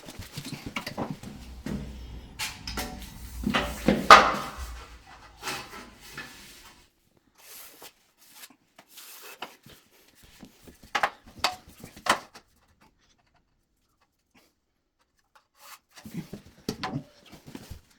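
Handling noise of tools against the wall: a run of knocks, taps and scraping in the first several seconds, loudest about four seconds in, then a few sharp clicks around eleven to twelve seconds in and a last cluster near the end.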